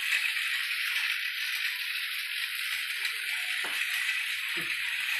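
Battery-powered toy train running on its track, a steady high rattle.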